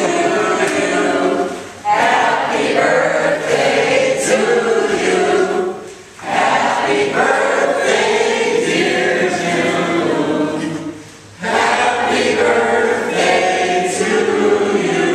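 A crowd of people singing together without accompaniment, in four long lines with short breaks between them.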